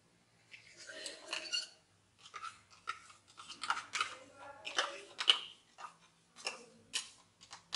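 Hand beater clicking and scraping against a bowl in short, irregular strokes while mixing thick peanut butter and Greek yogurt together.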